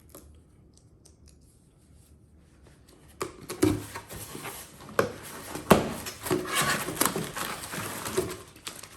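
A cardboard shipping box being opened by hand: a few seconds of faint handling, then knocks and clicks with tearing and rustling of packaging.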